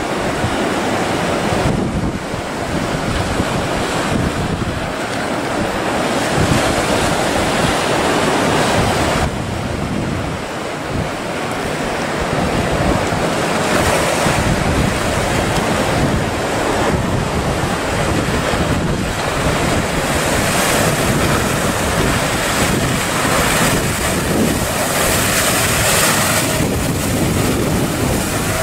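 Breaking waves and rushing surf, with heavy wind noise buffeting the microphone.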